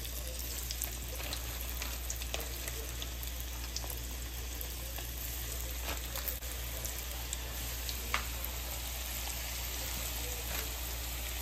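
Breaded catfish pieces frying in hot oil in a small skillet: a steady sizzle with scattered small pops and crackles.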